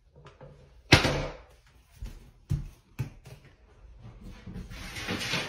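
A single loud bang about a second in, then a few lighter knocks, with a rushing noise building near the end.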